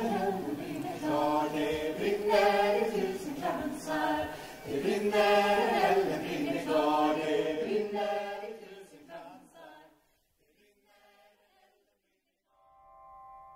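A choir of voices singing a cappella in slow phrases, fading out about nine seconds in. Near the end a few soft keyboard notes begin.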